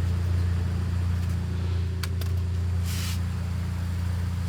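Steady low hum of a running car, with two sharp clicks about two seconds in and a short scrape about three seconds in.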